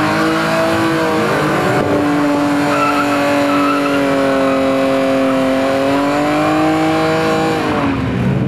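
BMW E36 drift car doing a burnout: engine held at high, slightly wavering revs while the rear tyres spin and squeal on the asphalt. Near the end the revs drop away.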